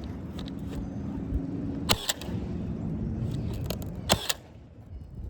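Roofing nail gun firing twice into a shingle, each shot a sharp double crack, about two seconds apart, over a steady low hum that stops just after the second shot.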